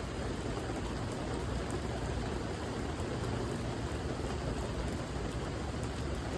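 Steady rain falling, an even hiss of many drops with faint small patters.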